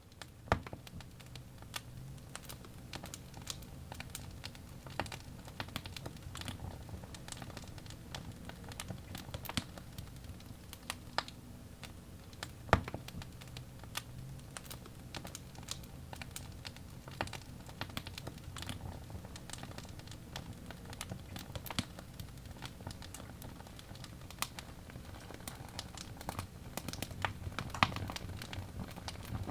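Wood logs burning in a fireplace, crackling with irregular small pops and a few louder snaps, over the low steady rush of the flames.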